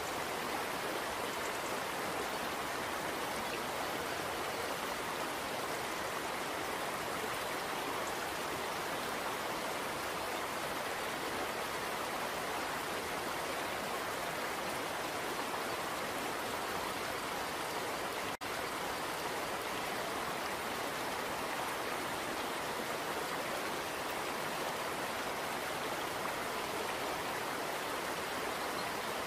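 Steady, even rushing noise like a stream or rain, unchanging throughout, with a brief dropout about eighteen seconds in.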